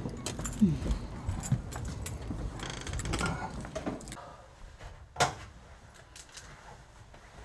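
Household handling sounds: scattered clicks, rustles and creaks as bags and objects are handled, with one sharp knock about five seconds in, then quieter.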